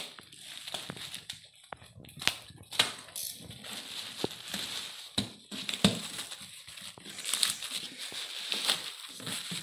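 Thin black plastic bag crinkling and rustling as it is pulled and handled around a cardboard box, with many irregular sharp crackles.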